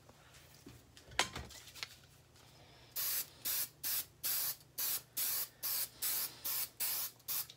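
Aerosol can of spray adhesive being sprayed in about a dozen short hissing bursts, about two a second, starting about three seconds in. A single sharp knock comes about a second in.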